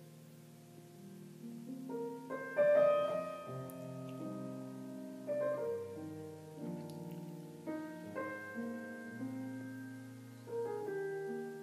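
Piano music: slow sustained chords and melody notes, changing every second or two, quiet at first and louder from about two seconds in.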